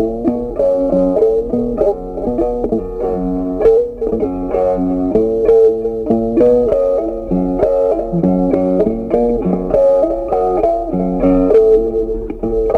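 Background music led by a plucked guitar, playing a steady melody of short notes.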